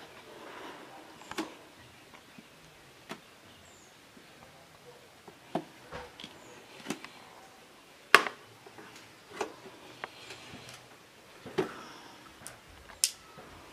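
Plastic headlight lens being prised off its housing by hand, the sealant softened by heat: a string of about eight irregular sharp clicks and snaps, the loudest a little after eight seconds in.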